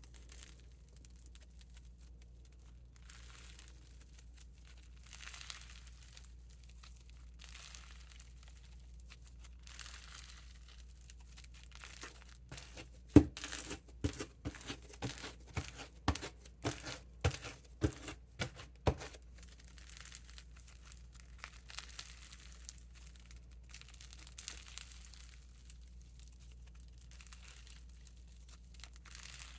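Crunchy bingsu slime, heavily packed with beads, being stretched and squished by hand, giving a crinkling, crackling crunch. From about 13 to 19 seconds in comes a run of sharper, louder pops and clicks.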